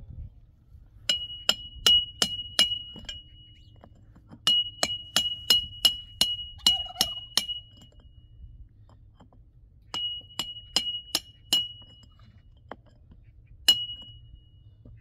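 Hammer blows on metal, each ringing at the same high pitch: a run of about five, then about nine, then about four, roughly two or three a second, and one last blow near the end.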